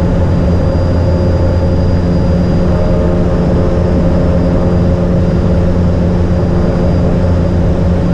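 Cessna Soloy's turboprop engine and propeller heard from inside the cabin while climbing out after takeoff: a steady loud drone with a thin, constant high whine over it.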